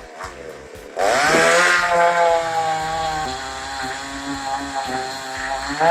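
Chainsaw engine revving up sharply about a second in and running at high speed, then easing off near the end.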